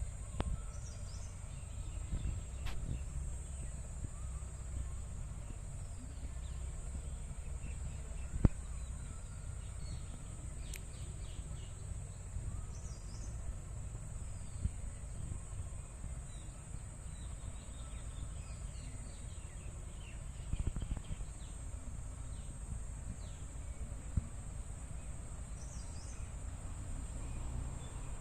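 Outdoor ambience: a steady high-pitched insect drone with scattered bird chirps over a low rumbling noise. A single sharp click comes about eight seconds in.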